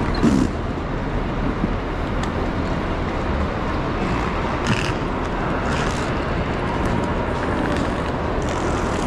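Steady din of a busy city-centre public place, the mixed hubbub of people and traffic around a main railway station, with a few short hissing noises about halfway through.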